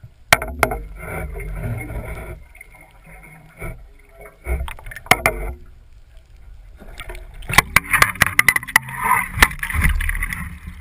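Irregular sharp knocks and clatter over a steady low rumble, with the knocks coming thickest in the second half.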